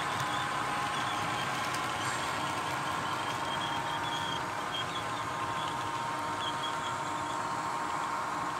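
HO scale freight cars rolling past on model track: a steady rolling whir with short high squeaks now and then.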